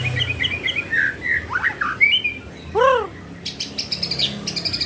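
White-rumped shama (murai batu) singing a varied song: quick chirps and sliding notes, one arched whistle that rises and falls about three seconds in, then a fast rattling trill near the end.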